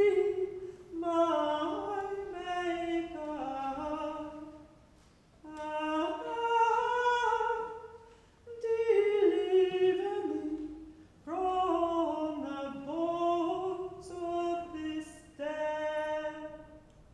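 A woman's voice singing unaccompanied, a solo melody in about five phrases separated by short pauses.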